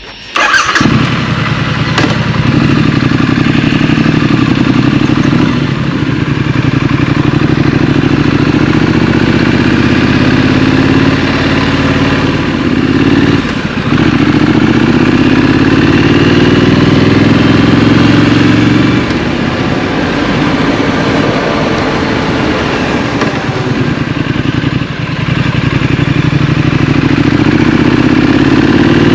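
Scrambler motorcycle engine running while riding. It comes in abruptly just after the start, then its pitch climbs for a few seconds at a time and drops back repeatedly as it accelerates and shifts through gears, easing off briefly twice midway.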